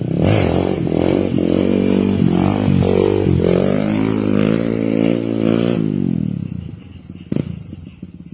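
Kawasaki KLX150 single-cylinder four-stroke dirt-bike engine revved with repeated throttle blips, its pitch rising and falling, for about six seconds. It then drops back to a low idle, with one sharp click near the end.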